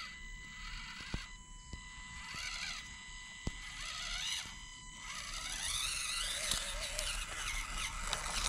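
Micro-scale RC crawler's small electric motor and gears whining as it crawls over rock, the pitch rising and falling with the throttle, with a couple of sharp clicks early on. The whine grows louder and busier from about halfway through as the truck climbs.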